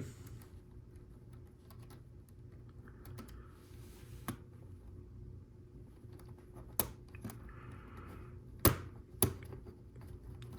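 Plastic LEGO Technic pieces being handled and fitted together: scattered sharp clicks, the loudest a pair about nine seconds in, with a little rustling, over a faint steady hum.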